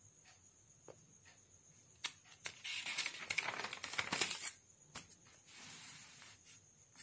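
A notebook's paper page being turned by hand: a click about two seconds in, then about two seconds of paper rustling, followed by a fainter brushing as the hand smooths the page flat.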